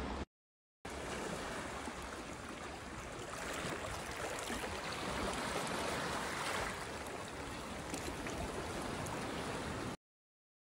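Steady rushing of water and wind outdoors, an even noise with a low rumble underneath. It drops out briefly just after the start and cuts off near the end.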